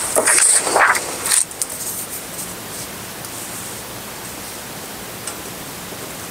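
Steady hiss of the recording's noise floor, after a brief louder sound in the first second and a half.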